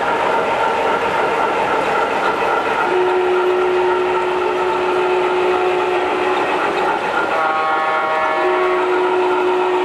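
Model steam locomotive's onboard sound system playing a steady steam-engine running sound with rolling noise from the wheels on the track. A steam whistle blows long blasts, a single held note from about three seconds in and a chord of several notes at once from about seven seconds in.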